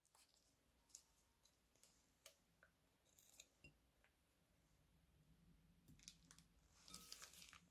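Faint handling of a plastic piping bag as it is squeezed: scattered soft crinkles and clicks, with a denser patch of crinkling near the end as thick slime glue pipes out into a glass bowl.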